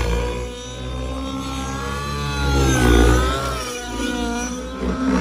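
Nitro-fuelled RC model helicopter's glow engine and rotor running under changing load in aerobatic flight. Its pitch rises and falls, dipping and recovering about three seconds in, where it is loudest.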